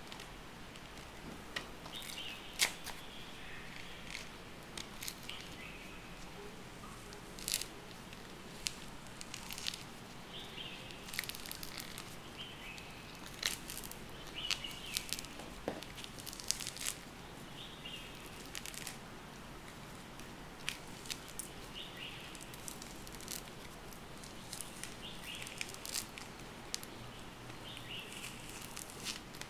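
Orange rind being torn and pulled off by hand: irregular small crackles and snaps of the peel, some sharper than others. Birds chirp in the background every few seconds.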